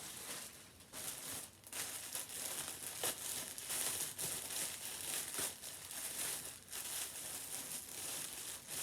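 Thin plastic clothing packaging crinkling and rustling as it is handled, with a few sharper crackles, as if being pulled or torn open.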